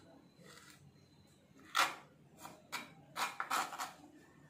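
Kitchen food-prep handling while fruit is cut and added to a bowl: one loud short noise nearly two seconds in, then a cluster of short noises over the next two seconds.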